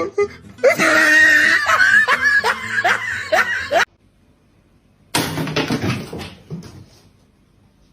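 A person laughing in a run of short, falling "ha" strokes, followed after a pause by a brief noisy clatter.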